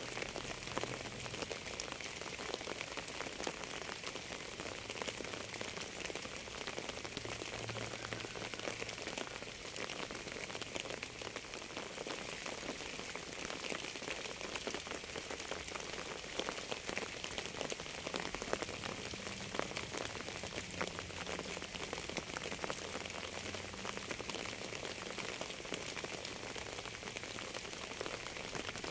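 Steady rain falling, a dense, even patter of countless drops on a surface.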